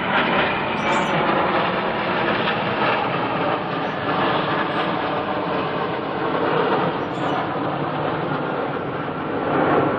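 Formation of military jets flying over, their engines making a steady rushing rumble with a faint whine that swells slightly near the end.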